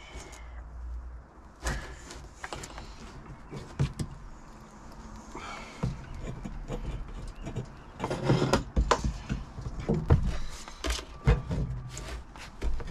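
Handling noise as a diesel night heater's corrugated metal exhaust pipe is fed down through a hole in a van floor: scattered knocks, clicks and scrapes, busiest from about eight seconds in.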